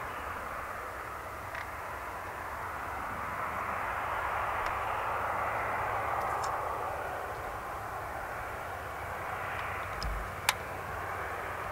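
Boeing 777-200ER's twin Rolls-Royce Trent 800 turbofans running as the airliner moves along the runway; the jet noise swells and then eases. A single sharp click comes near the end.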